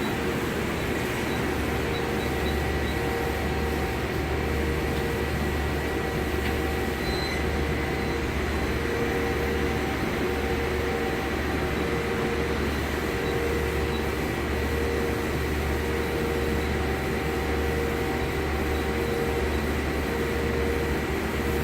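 Okuma Impact LU45M CNC lathe running steadily: a constant low hum with a steady mid-pitched whine and a fainter high tone over it.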